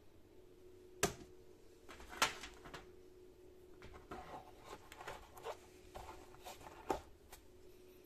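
Plastic-handled insulated screwdrivers clacking and rustling as they are slid in and out of the elastic loops of a fabric tool case, with sharper knocks about one, two and seven seconds in. A faint steady hum runs underneath.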